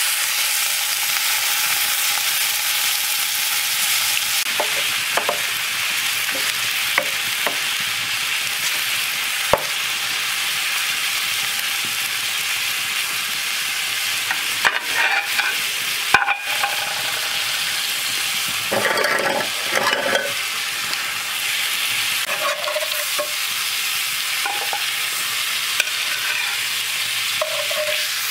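Steak sizzling in an iron skillet over a wood fire: a steady hiss of frying fat. It is broken by occasional clicks and scrapes as a metal spatula turns the meat against the pan, busiest a little past the middle.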